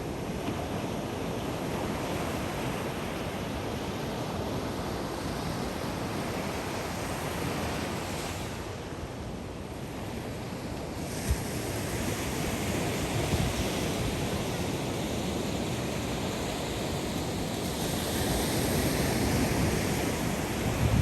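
Ocean waves breaking and washing up on a sandy beach, a continuous surf wash that swells and eases, with wind buffeting the microphone.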